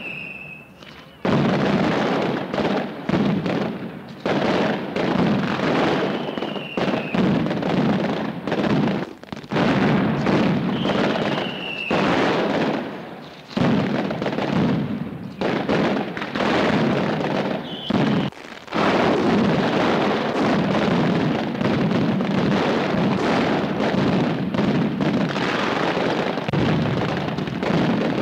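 Mascletà: long strings of firecrackers going off in a dense, continuous run of bangs, with a few brief lulls. Short falling whistles sound now and then over the bangs.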